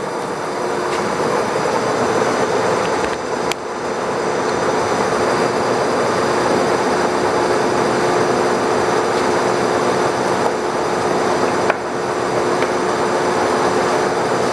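Monarch Series 90 heavy-duty lathe running under power, spindle at 220 RPM, with the carriage power-feeding toward the headstock: a steady geared mechanical whir with a constant hum. There are two brief clicks, about three and a half and eleven and a half seconds in.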